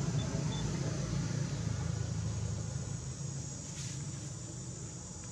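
A distant engine's steady low rumble, slowly fading away, with a faint click near the end.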